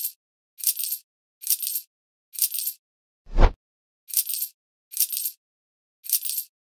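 Sound effects of the Microgaming Switch European Roulette game: short bursts of casino chips clinking onto the table, about one a second, with one deep thud about three and a half seconds in.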